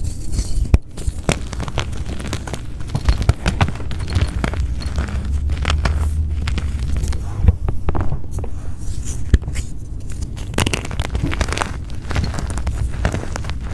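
Gym chalk blocks being crushed and crumbled: a dense, irregular run of crunches and crackles over a dull low rumble.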